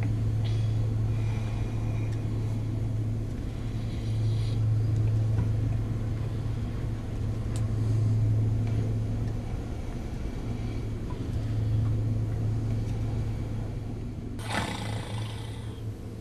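A man snoring loudly, a deep rasping drone that swells and fades about every four seconds. A brief rustling noise comes near the end.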